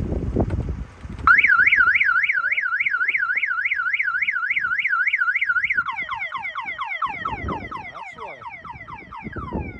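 Honda Civic car alarm siren going off: a loud warbling wail starting suddenly about a second in, rising and falling about four to five times a second, then switching partway through to rapid falling chirps, about three a second.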